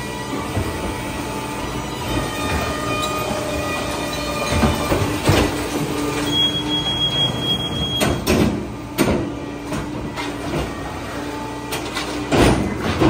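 Heil 5000 rear-loader garbage truck running, its hydraulic packer humming steadily while plastic carts are tipped into the hopper with several sharp bangs. A high, steady squeal lasts under two seconds near the middle.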